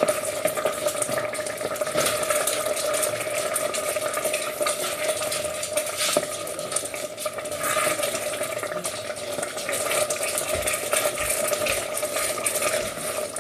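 Risotto rice sizzling in a pan while being stirred, with small clicks and scrapes of the spoon against the pan, over a steady hum.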